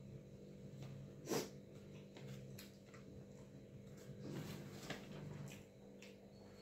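Quiet eating by hand: fingers mixing watered rice against a steel plate, with chewing, soft scattered clicks and one sharper click about a second and a half in, over a steady low hum.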